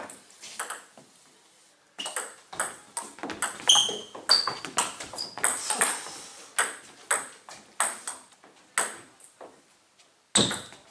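Table tennis rally: the plastic ball clicks quickly back and forth off the bats and the table, two to three hits a second, from about two seconds in until shortly before the end. A few short high squeaks of shoes on the wooden floor come early in the rally, and a louder knock comes just before the end.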